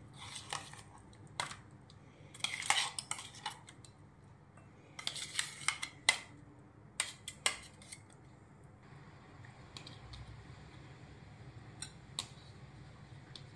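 Steel spoon scraping and knocking against the inside of a metal mixer-grinder jar, clearing out ground mango chutney, in clusters of clinks and scrapes for about eight seconds, then only a couple of light clinks near the end.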